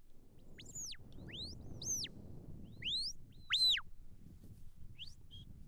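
Shepherd's whistle commands to a working border collie: about five short, sharp notes, some rising and some swooping down, the loudest near the end. Low wind rumble on the microphone underneath.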